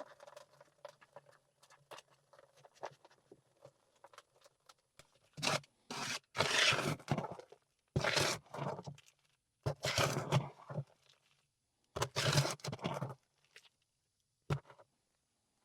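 Wood ash being shaken and scraped through a homemade sifter. Faint gritty ticking at first, then four loud scraping bouts of a second or two each, starting about five seconds in.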